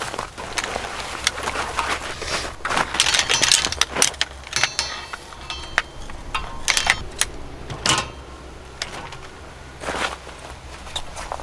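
Irregular rustles, crunches and clinks of things being handled, over a faint low rumble.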